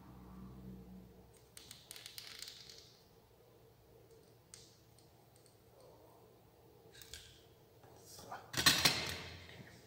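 Hand work at a workbench: small clicks and rustles of tools and wires being handled, then a louder rattling clatter lasting about a second, shortly before the end.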